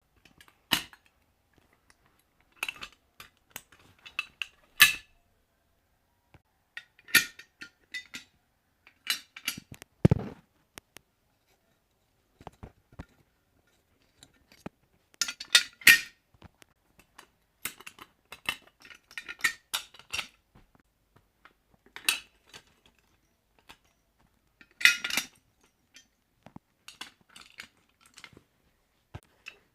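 Fire alarm pull stations being handled and operated: sharp metallic clicks, clacks and clinks in scattered clusters with pauses between, and one duller thump about ten seconds in.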